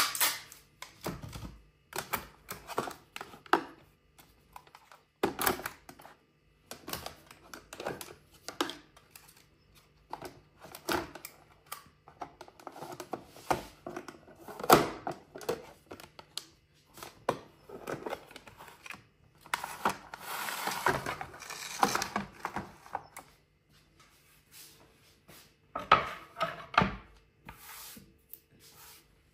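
Irregular knocks, clicks and clatter of objects being handled in a small room, with a denser rush of noise about two-thirds of the way through.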